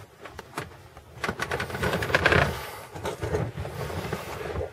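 A run of quick plastic clicks and rattles, busiest between one and two and a half seconds in, then lighter: a car's interior trim panel and the loose items behind it being handled.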